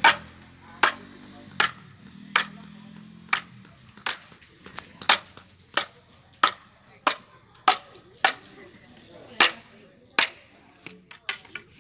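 Machete chopping a bamboo pole: over a dozen sharp strikes at a steady pace, a little more than one a second.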